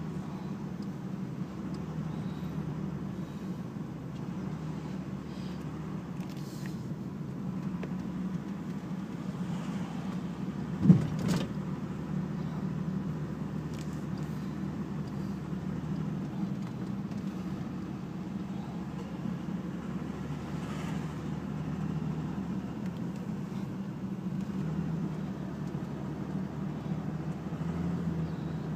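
Car interior while driving slowly: a steady low hum of engine and road noise. About eleven seconds in there is one sharp knock, followed by a fainter one.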